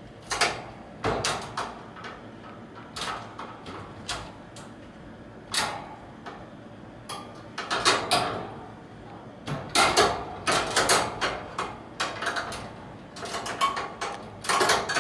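A cat pawing the cage key on its metal chain, knocking it against the wire bars of the cage: irregular clinks and rattles in short clusters, the loudest about eight and ten seconds in.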